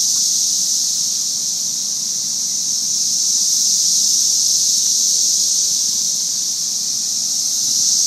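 Chorus of many cicadas singing together: a loud, steady, high-pitched screaming.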